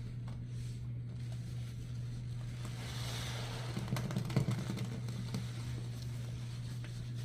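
Steady running water while a soaked sponge is rinsed, with a louder crackly squish of the sponge being squeezed about four seconds in.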